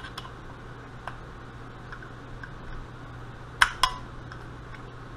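Screwdriver clinking against the metal body of a Carter mechanical fuel pump: a few light ticks, then two sharp metal clinks a quarter-second apart about three and a half seconds in, over a steady low hum.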